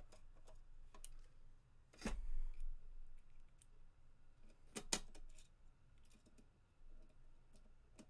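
Small clicks and taps of a precision screwdriver and screws on a hard drive enclosure as two screws are driven back in, with a louder knock about two seconds in and a sharp click about five seconds in.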